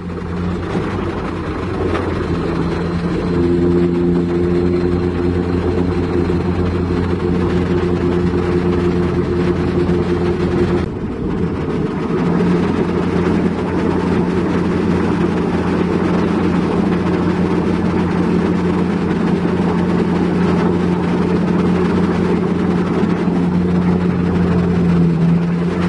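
Heavy diesel machinery running steadily, with a higher pitched drone between about 3 and 11 seconds in and a short dip in level near 11 seconds.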